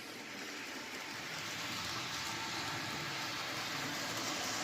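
HO scale model train running along the layout's track: a steady rolling noise from the locomotive's motor and wheels, slowly getting louder.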